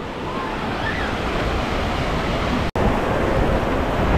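Wave pool water rushing and washing steadily, mixed with wind noise on the microphone; the sound cuts out for an instant about two-thirds of the way through.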